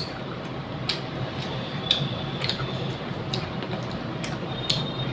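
Fingers mixing rice on a ceramic plate, with sharp clicks, some briefly ringing, at irregular intervals about once a second as the fingers tap the plate, over a steady low hum.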